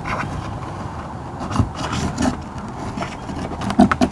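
Old silicone sealant being scraped off the camper's side wall by hand, in uneven scratchy strokes with a few sharper scrapes near the end.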